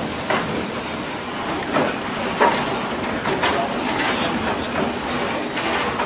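Water-powered sawmill machinery running: a steady rattling rumble with irregular sharp knocks and clacks from the log carriage and its drive.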